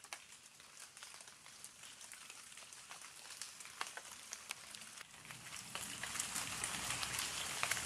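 Rain falling, separate drops ticking over a steady hiss, growing steadily louder.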